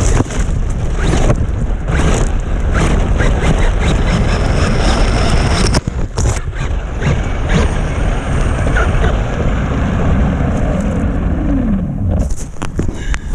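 Radio-controlled truck running hard through snow: a dense rushing noise with frequent sharp knocks. Near the end a motor whine falls steeply in pitch as it slows, and the noise drops off.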